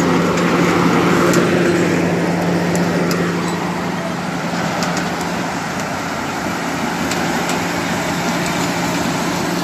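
The diesel power unit of a Dingli DR-220 crawler rotary drilling rig runs with a steady low hum as the rig travels on its steel tracks. Scattered light clicks sound over the hum.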